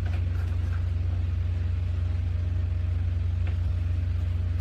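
A steady low hum, with a few faint light taps over it.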